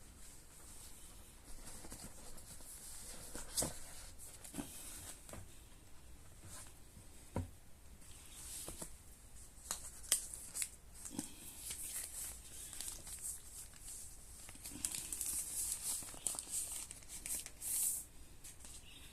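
Unboxing packaging being handled: plastic film and paper crinkling and tearing, with scattered clicks and taps. The crinkling is busiest for a few seconds near the end.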